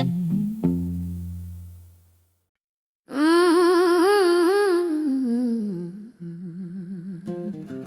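A blues band's last held electric guitar and bass chord fades out, then after a brief dead silence a woman hums a long wavering "mmm" with vibrato to open the next song, and electric guitar notes come in near the end.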